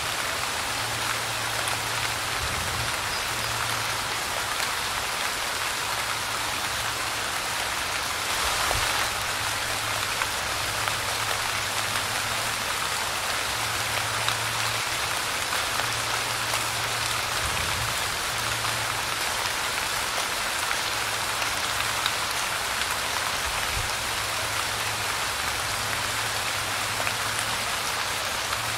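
Light rain falling steadily, an even hiss with scattered drop ticks, swelling briefly about eight seconds in. A faint low hum comes and goes underneath.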